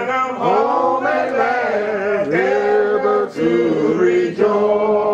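Unaccompanied hymn singing, in long held notes that slide up and down in pitch.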